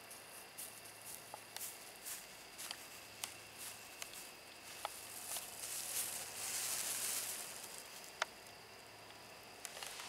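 Dry grass rustling and crackling underfoot, with scattered small ticks, a longer rustle past the middle and one sharp tick soon after.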